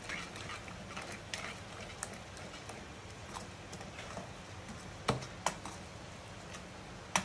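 Metal spoon stirring thick pav bhaji masala in a kadai, with soft scraping and irregular clicks of the spoon against the pan; a few sharper taps come near the end.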